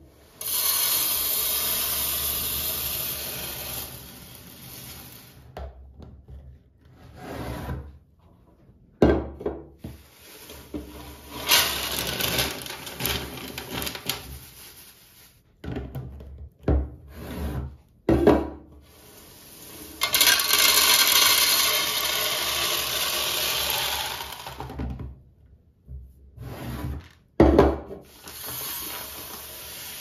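Dried beans and then fine grain poured from bags into a clear plastic storage canister: several stretches of rushing rattle, each a few seconds long. Between the pours come single knocks, most likely the canister's lid being pressed on and the container handled on the wooden table.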